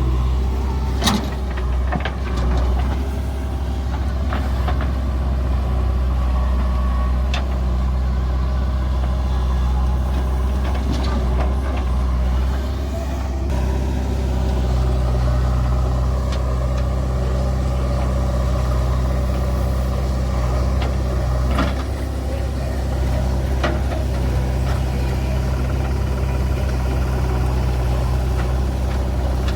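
Diesel engine running steadily, with a few sharp knocks or clanks scattered through.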